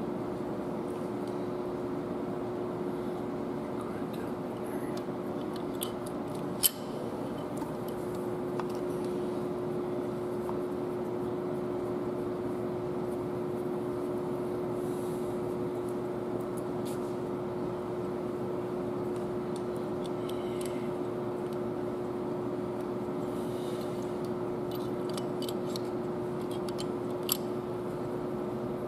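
Steady workshop background hum with one constant tone. Over it come scattered sharp metallic clicks and taps of a hand tool working in a Cummins ISX cylinder head: one loud click about seven seconds in, then a run of small clicks near the end finishing in another sharp one.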